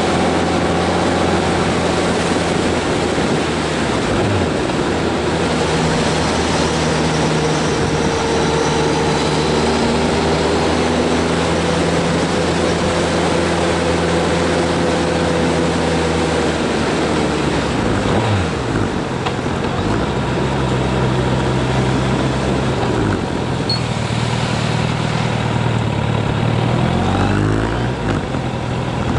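Vehicle engine running steadily over a constant rush of road and wind noise. Its pitch shifts down and up again a little after halfway, and rises once more near the end.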